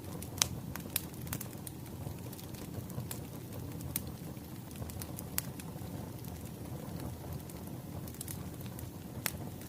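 Wood fire crackling: a steady low rumble of burning logs with sharp pops at irregular intervals, the loudest about half a second in.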